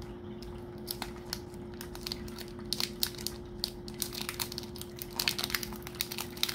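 Foil Pokémon card booster pack wrapper crinkling as it is pulled open by hand. Sparse crackles start about a second in and become dense from about three seconds in.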